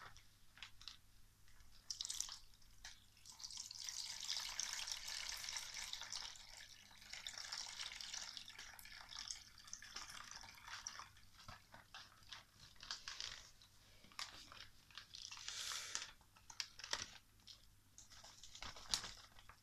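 Water from a plastic fish bag pouring through a small aquarium net into a plastic basin, a steady splashing trickle for several seconds, with the plastic bag crinkling and small splashes and drips before and after.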